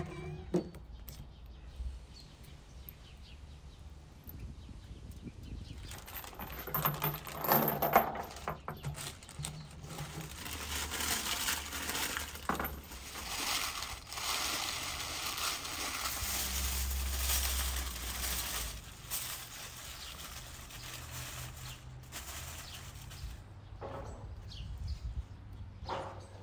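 A large white sheet rustling as two people unfold and handle it, for several seconds in the middle, after a cluster of clicks and knocks.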